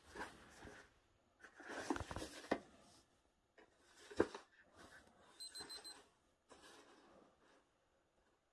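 A cat batting and nosing a paperback book on carpet: the paper cover rustles and scrapes in short bursts, with a couple of sharper taps. Midway there is a quick run of faint, high electronic beeps.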